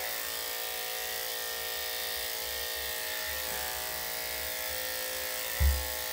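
Corded electric dog-grooming clippers running with a steady hum as they are drawn through the dog's chest fur. A brief low thump sounds near the end.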